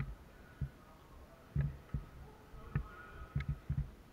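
Footsteps and gear knocks of an airsoft player moving through a building: about eight dull thumps at an uneven pace, each with a light click.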